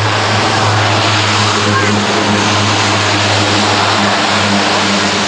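Outdoor crowd chatter over a loud, steady rushing noise with a low hum.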